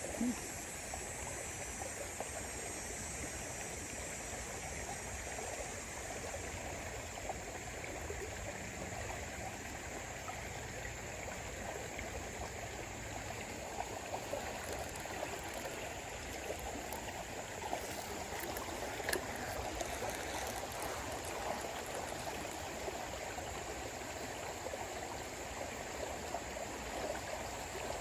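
Steady rushing of a river flowing past the bank, with a few faint ticks partway through.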